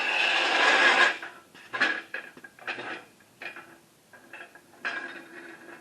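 Metal scraping for about a second, then a series of separate clanks and clicks: a tall under-hoist jack stand being set up and raised under the exhaust system.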